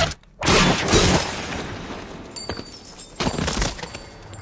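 Glass shattering in a loud crash about half a second in, with high tinkling as the pieces fall, and a second loud crash about three seconds in.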